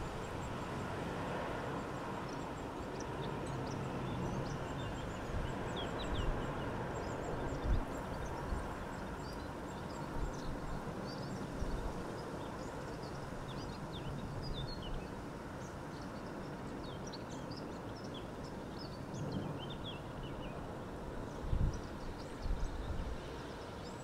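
Steady rush of wind mixed with the distant jet noise of an Airbus A320 on final approach, with small birds chirping throughout. A few low thumps from wind buffeting come near the end.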